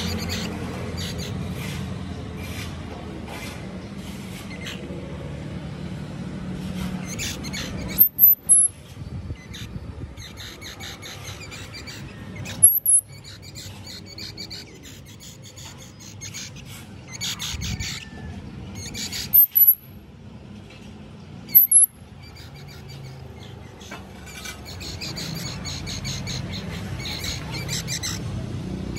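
Baby squirrels squeaking: four very high, short squeaks stand out as the loudest sounds, with quicker, fainter chittering clicks in between.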